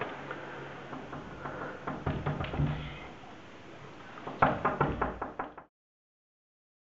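A fist knocking on a wooden door: a run of knocks about two seconds in, then a louder run of knocks a second or so later, over low room noise.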